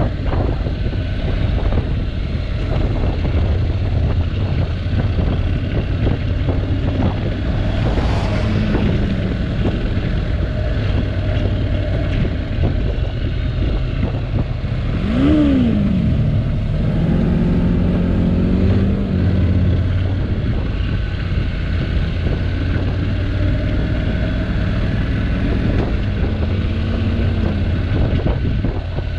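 Honda NC750X's parallel-twin engine running steadily at low road speed, with wind noise on the microphone. About fifteen seconds in, an engine note rises and falls briefly.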